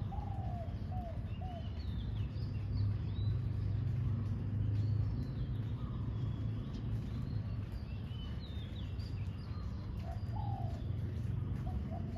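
Spotted doves cooing, a short phrase of three or four low, curved coos at the start and again near the end, while small birds chirp higher up. Under them runs a low rumble that swells a few seconds in.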